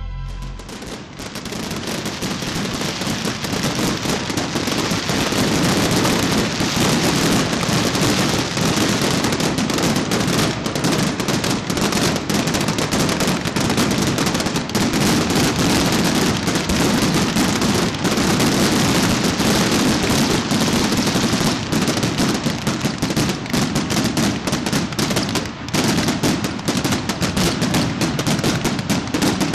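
A fireworks display: a dense, continuous barrage of crackling and popping shells going off in rapid succession.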